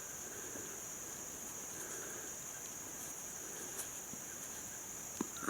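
Steady high-pitched insect chorus, with a single click near the end.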